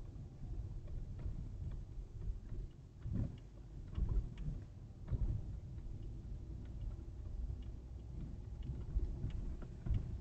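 Car interior as picked up by a windshield-mounted dashcam while driving: a low road and engine rumble, with several dull bumps and scattered light clicks from the car body.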